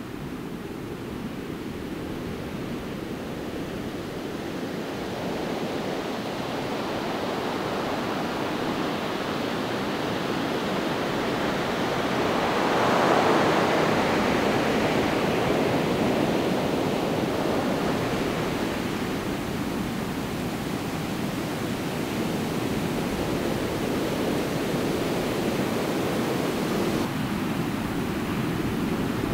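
Steady rushing water, growing louder to its peak about halfway through and then easing off a little.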